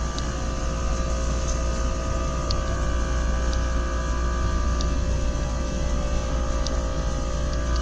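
Steady low rumble with a steady hum over it and a few faint ticks: the background noise of a large store.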